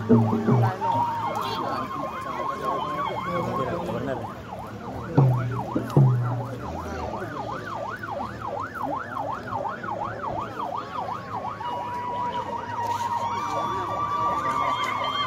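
A high-pitched wail swinging quickly up and down in pitch, about three times a second, over crowd noise, with two low drum thumps about five and six seconds in.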